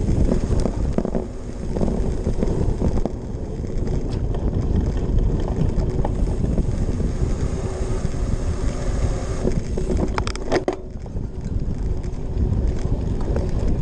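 Wind buffeting the microphone of a handlebar-mounted camera on a cyclocross bike ridden fast over bumpy grass, with rumble from the tyres and rattling of the bike. A quick cluster of sharp clicks about ten seconds in.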